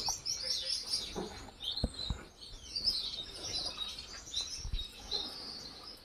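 A flock of Gouldian finches chirping: many short, high notes overlapping one another, with a few soft low knocks about two seconds in and near the end.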